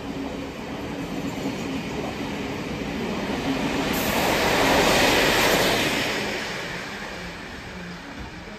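A train passing, its rushing wheel and running noise growing to loudest about five seconds in and then fading away.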